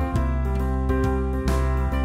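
Instrumental background music: a melody of short notes over low held notes.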